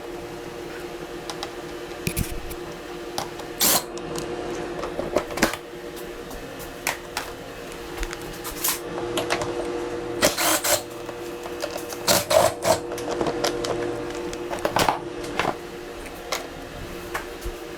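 Hand tools working on a Kawasaki KX65 dirt bike during teardown: irregular metal clicks and clanks, with a steady hum underneath.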